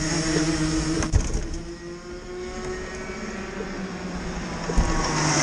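Two-stroke kart engines running steadily, with one engine rising in pitch near the end as it accelerates. A single sharp knock comes about a second in.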